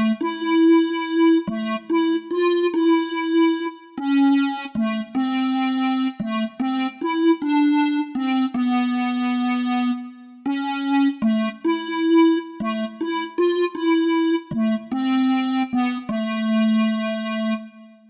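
IK Multimedia Syntronik J-60 software synthesizer, an emulation of the Roland Juno-60, playing its square-wave preset "Latency Square": a melody of single notes, short ones and held ones, some much brighter than others.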